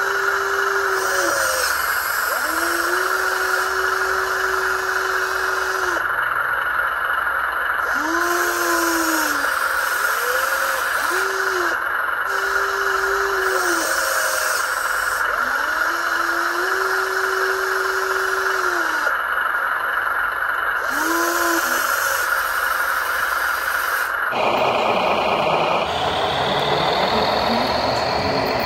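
Small electric motor whining up and down again and again, rising to a steady pitch, holding it for a second or a few, then falling away, over a constant hiss. About 24 seconds in, the sound changes suddenly to a different, fuller machine noise with a slowly rising whine.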